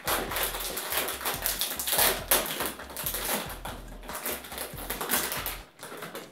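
Plastic sweets bag crinkling and crackling as it is torn open and handled, in a quick irregular patter of crackles that eases off near the end.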